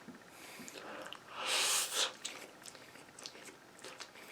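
Close-miked chewing and wet mouth clicks from a person eating Chinese takeout food. About a second and a half in there is a louder breathy hiss lasting under a second, like a sniff or a slurp.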